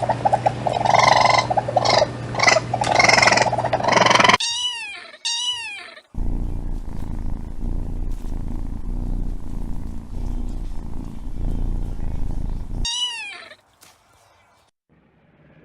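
A cat purring in a low steady rumble for several seconds, with short falling meows just before and just after it. Before that, about four seconds of loud, broken animal calling.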